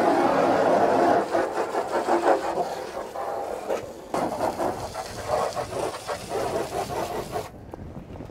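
Hose spray jet of water striking a fiberglass boat deck and side wall, rinsing off deck cleaner, with an uneven splashing hiss. It cuts off suddenly near the end.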